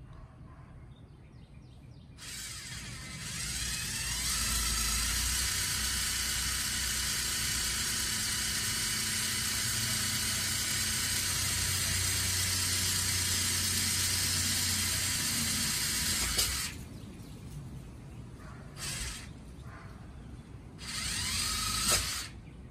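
Electric power drill running in one long steady run of about fourteen seconds, coming up to speed at the start and stopping abruptly, then two short bursts near the end.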